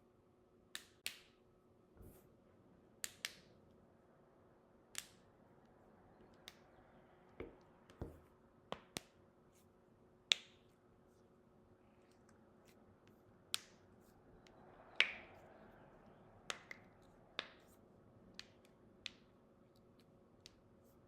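Knuckles being cracked one after another: about twenty sharp, separate pops at irregular intervals, some in quick pairs.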